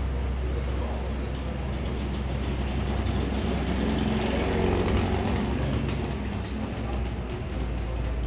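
Street traffic: a motor vehicle's engine running close by, swelling louder about halfway through, with a few brief high squeals near the end.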